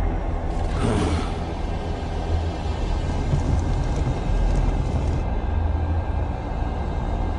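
A deep, steady low rumbling grumble from the cartoon demon Aku, with a brief hissing swell about a second in.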